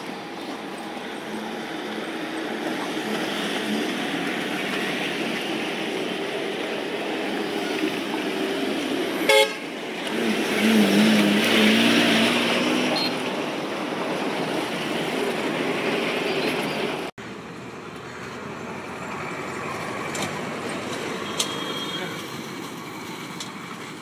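Steady outdoor street noise with voices and passing traffic; a sharp click about nine seconds in, then a vehicle horn sounding for about two seconds. About two-thirds of the way through the background drops and changes abruptly.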